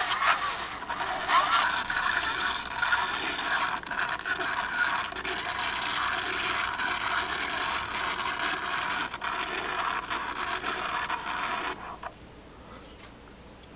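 A razor blade held against the grooves of a spinning vinyl record, scraping steadily along them with a scratchy, rasping noise. The scraping drops away sharply about twelve seconds in.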